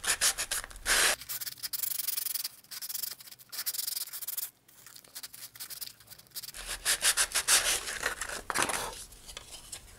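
Hand sanding: a small model-rocket fairing rubbed back and forth in quick strokes on sandpaper wrapped around a nose cone, shaping it to the cone's curve. The strokes are softer through the middle and grow louder for a couple of seconds near the end.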